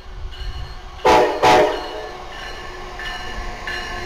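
Steam locomotive whistle sounding two short, loud blasts about a second in, the standard whistle signal to release brakes and proceed. Under it the standing locomotive puffs steadily, about every two-thirds of a second.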